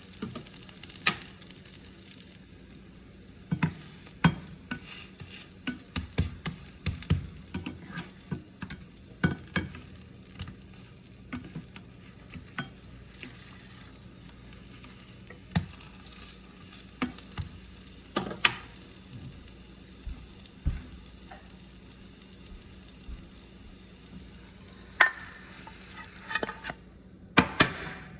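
Green onion pancakes sizzling in oil in a frying pan, with a cooking utensil clinking and scraping against the pan at irregular moments. The sizzle cuts off abruptly near the end.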